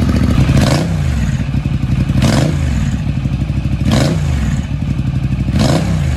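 Ducati L-twin motorcycle engine idling with a rapid, uneven beat, blipped four times in short rises and falls of revs about every second and a half.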